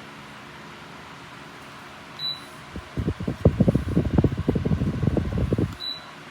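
Simple Deluxe 16-inch wall-mount fan running with a steady hum. Two short high beeps sound about three and a half seconds apart, and between them comes a few seconds of loud, irregular low rumble, like air buffeting the microphone.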